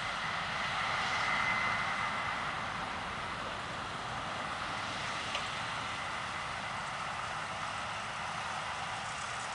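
Case IH 9230 combine harvester running steadily while cutting and threshing peas: an even machinery hum with a faint high whine that is clearest in the first couple of seconds.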